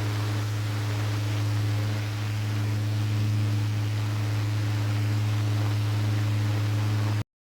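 Small battery-powered electric fan running at a steady speed: a low motor and blade hum over an airy hiss, cutting off abruptly near the end.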